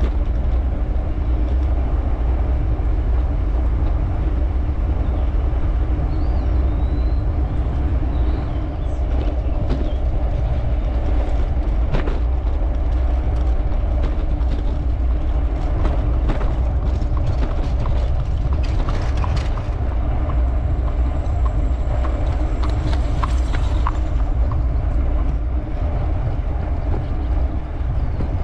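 Steady wind buffeting and road rumble on a GoPro carried on a bicycle while riding. Scattered sharp clicks and knocks come and go from about a third of the way in until a little past the middle.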